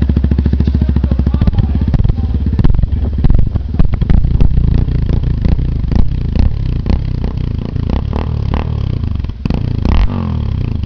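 Yamaha Ténéré 250's single-cylinder engine running through a Roncar Coyote TRS Two Way exhaust tip. It idles steadily, then from about two seconds in is revved in short, uneven blips of the throttle.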